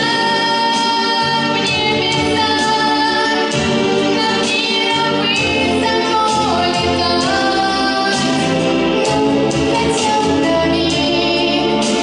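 A girl singing a song live into a handheld microphone over a recorded backing track with a steady beat, amplified through the hall's sound system.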